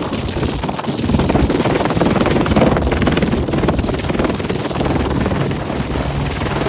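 Helicopter running loud and steady, its rotor giving a fast, even chop over the engine noise.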